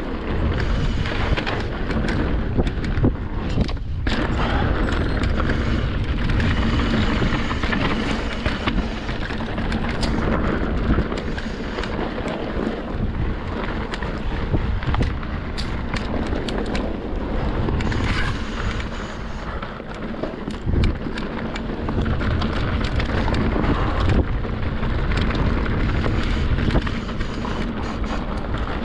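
Wind rushing over the microphone during a ride down rough rock trail, with frequent short clattering knocks throughout.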